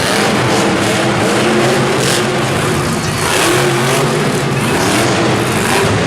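Monster truck engine running loud and revving, its pitch wavering up and down over a dense roar.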